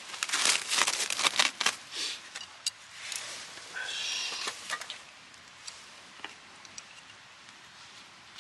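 Crinkling and rustling of something being handled, dense for the first two to three seconds, then thinning to sparse light clicks, with a brief high squeak about four seconds in.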